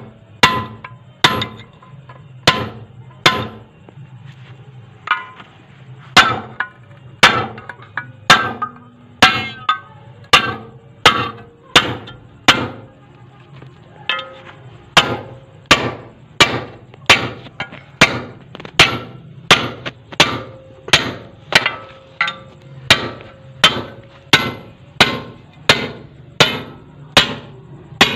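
Small hand hammer striking steel over and over, about one and a half blows a second, each blow ringing briefly.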